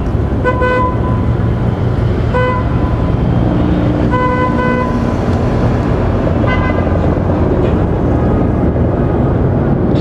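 Motorcade vehicles moving off with engines running in a heavy, steady rumble, punctuated by short horn toots of the same pitch from the escort vehicles, some in quick pairs, every second or two.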